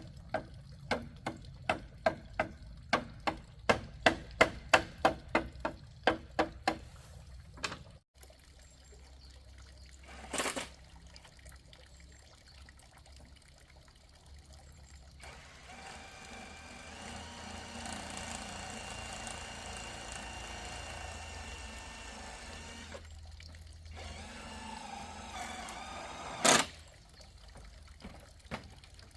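A run of about twenty ringing hammer-like strikes, roughly three a second, for the first seven seconds. Then a single knock, several seconds of running or pouring water, and one loud knock near the end.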